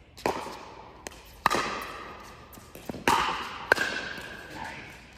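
Pickleball paddles hitting a plastic pickleball in a rally: about four sharp, hollow pops a second or so apart, each followed by a ringing echo in the hall. Between them come a couple of fainter ticks.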